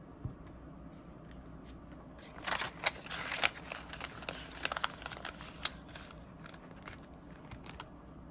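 A $20 paper banknote and a clear plastic binder pouch rustling and crinkling as the bill is slid into the pouch: a run of crisp crackles and clicks between about two and six seconds in.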